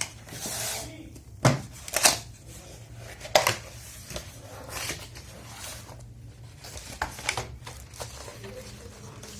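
A Dell KB216 keyboard and its packaging being handled: rustling, with a few sharp clacks and knocks about 1.5, 2 and 3.5 seconds in, over a steady low hum.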